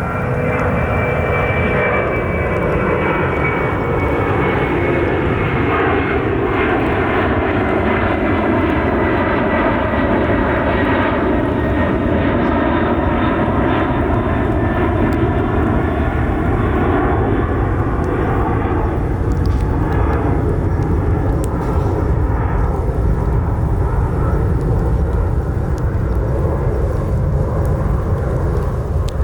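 Jet airliner passing low overhead: a loud, continuous engine roar with bands of pitch that sweep down and then back up as it goes by.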